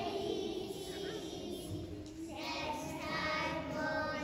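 A group of young children singing a song together, with the voices fuller in the second half.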